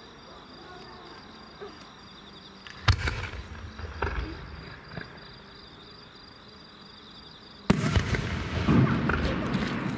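Aerial firework shells bursting. A sharp bang comes about three seconds in, followed by a rolling rumble and smaller reports around four and five seconds. Near eight seconds a louder bang sets off dense crackling and rumbling.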